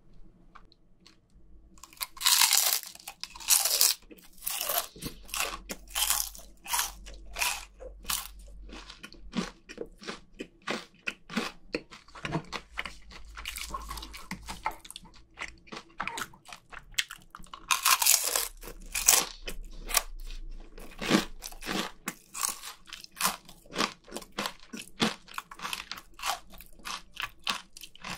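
Close-miked crunching and chewing of crisp deep-fried chicken skin coated in crushed spicy Cheetos, bite after bite, starting about two seconds in.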